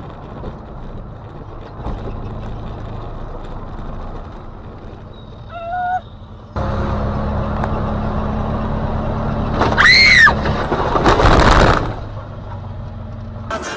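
Car engine and road noise heard from inside a moving car, changing abruptly between recordings. About ten seconds in a high squeal rises and falls, followed by a loud rush of noise lasting about a second.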